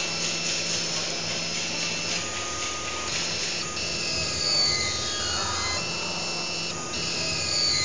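CNC hot wire foam cutter's drive motors running with a steady whine made of several tones that shift in pitch as the axes move, with a falling pitch sweep about five seconds in and another at the end.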